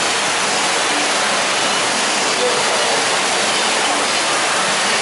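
Small artificial waterfall spilling over rockwork into a pool: a steady rush of water with no breaks.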